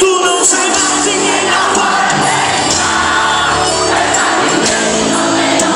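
Live gospel band music over a PA, with a large crowd singing along.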